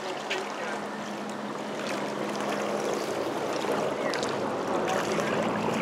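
Steady outdoor rushing of wind and choppy lake water at the shore, with a faint motor hum that fades early on.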